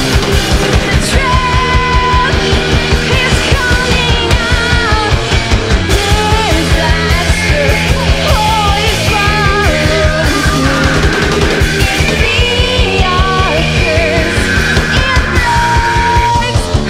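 Live band playing loud rock music with a fast, steady beat.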